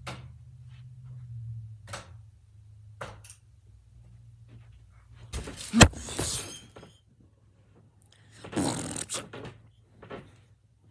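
Handling noise of a phone held against the microphone: scattered knocks and thumps, a sharp loud knock about six seconds in wrapped in rustling, and another burst of rustling about eight and a half seconds in.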